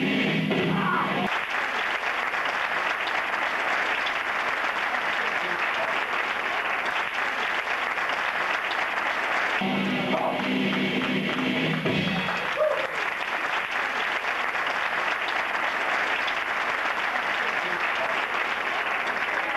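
Audience applauding steadily, with background music under it that comes through more clearly near the start and again about halfway.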